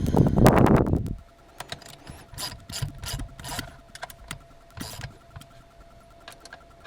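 Loud handling clatter for about a second, then scattered clicks and knocks: the car's plastic center console trim being set back in place around the shifter.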